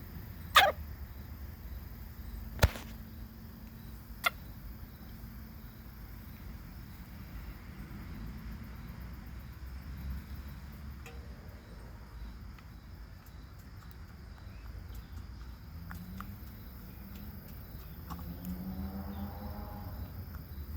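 A Silkie chicken sneezing three times, short sharp sneezes about two seconds apart, the first with a little squeak and the last fainter. The sneezes come from eating too fast.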